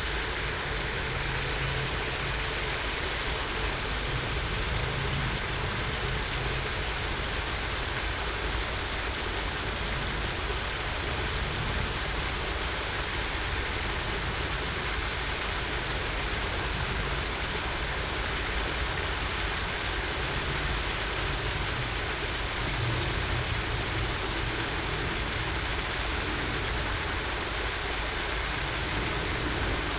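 Steady rushing splash of a fountain aerator playing in a lake, with a low rumble underneath.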